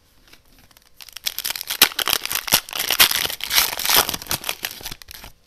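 Plastic wrapper of a 2021-22 Upper Deck Marvel Annual trading card pack being torn open and crinkled. It is a dense, crackling rustle that starts about a second in and lasts about four seconds.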